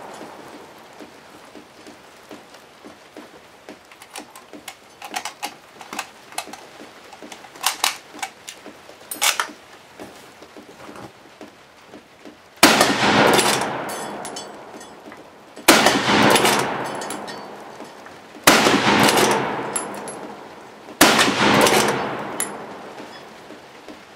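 Lee-Enfield bolt-action rifle being reloaded, small metallic clicks and clacks of the action and stripper clip, then four .303 British rifle shots about three seconds apart from about halfway in, each trailing off slowly.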